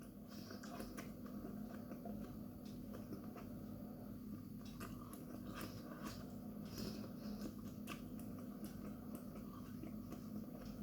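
A man biting and chewing a raw chocolate Naga chili pod: faint, irregular wet mouth clicks and crunches, over a steady low hum.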